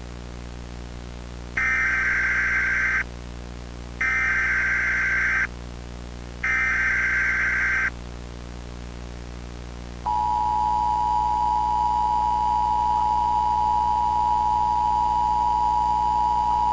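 Emergency Alert System SAME header: three short bursts of screeching digital data tones, about two and a half seconds apart. About ten seconds in they are followed by the steady two-tone EAS attention signal. A constant static hiss runs underneath.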